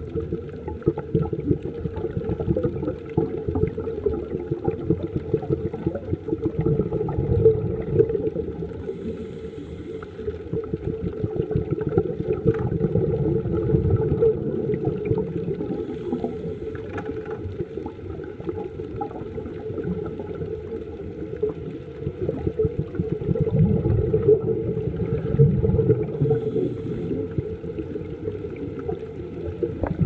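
Muffled underwater noise picked up by a camera in a waterproof housing: a dense, uneven rumble of moving water with faint crackling, swelling and easing at times.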